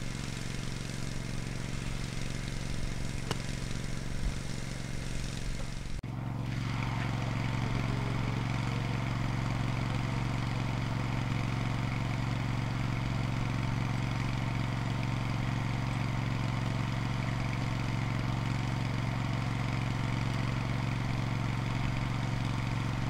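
A small engine running steadily with a low, even hum. It breaks off abruptly about six seconds in and resumes slightly louder.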